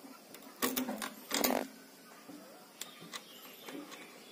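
A metal cable lug and bolt clicking and scraping on an inverter battery's terminal post as the lug is fitted back on by hand. There are two brief louder rasps, one under a second in and one about a second and a half in, then a few small clicks.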